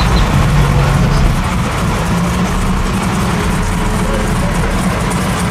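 Car engine idling loudly and steadily, with a rush of noise over it.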